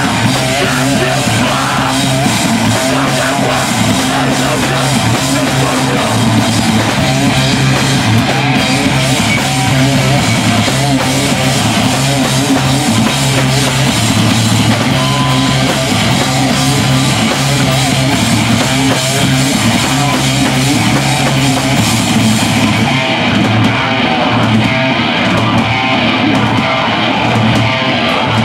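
Live metal band playing loud: heavy electric guitars and bass over a drum kit, recorded in the room. About 23 seconds in, the high end thins out.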